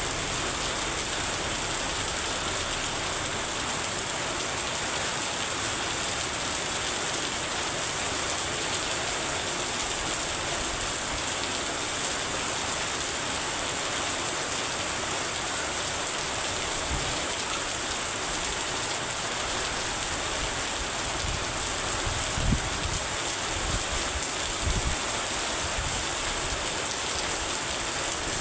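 Heavy rain falling with a steady hiss, with a few short low thumps near the end.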